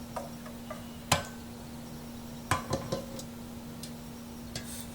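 A few light clicks and knocks of kitchen utensils and dishes being handled: one sharper knock about a second in and a quick run of three about two and a half seconds in, over a faint steady hum.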